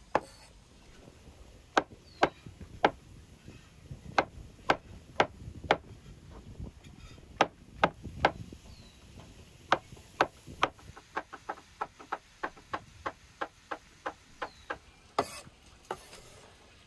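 Heavy cleaver chopping button mushrooms on a wooden cutting board: sharp knocks of the blade striking the board, spaced out at first, then a quicker run of chops about two or three a second in the second half.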